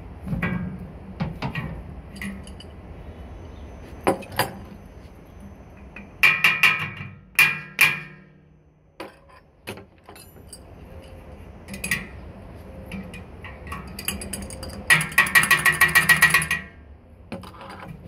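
A metal tool clinking and tapping against a metal air-conditioner condenser fan blade and its hub, each strike leaving a short ringing tone. There are scattered single taps, a quick run of taps about six seconds in, and a longer run of about a dozen rapid taps near the end.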